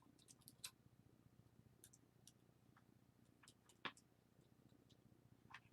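Faint, scattered small clicks and ticks of small plastic and metal camera lens parts and tools being handled, the loudest a little before four seconds in, over a low steady hum.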